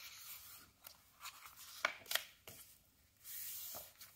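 Pages of a picture book being turned and handled: a few soft paper taps and rustles, then a hand sliding across the paper for under a second near the end.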